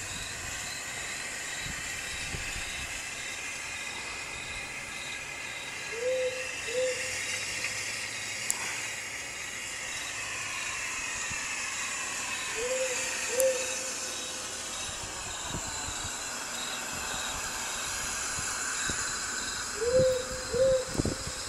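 Owl hooting: a two-note hoot, repeated three times about seven seconds apart, over a steady hiss.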